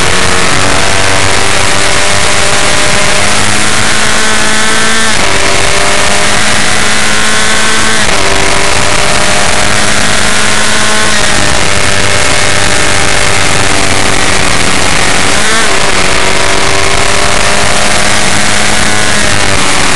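F1600 open-wheel race car engine under hard acceleration, heard from on board. Its pitch climbs steadily and drops sharply at each upshift, about four times, with a brief dip in the middle. Heavy wind and road rush lies under it.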